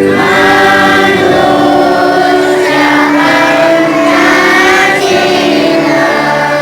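School choir singing a scout song in Indonesian, moving through long held notes.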